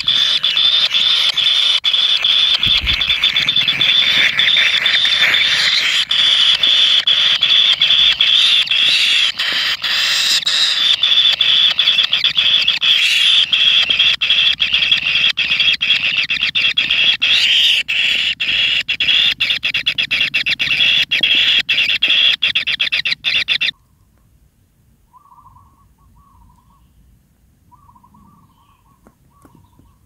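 Kingfisher nestlings begging for food: a loud, continuous rasping buzz of calls that cuts off suddenly about two-thirds of the way through, leaving only a few faint chirps.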